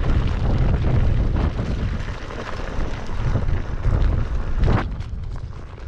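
Wind buffeting the microphone over the rumble of a KingSong S22 electric unicycle riding a dirt trail, with a knock a little before the end. No suspension squeak stands out; the rider finds the squeaks he was trying to record did not come through.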